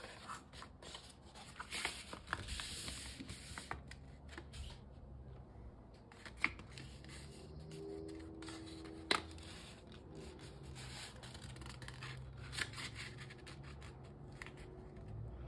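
Paper plate being handled and folded: stiff paper rustling and rubbing as it is pressed and slid, with two sharp taps partway through.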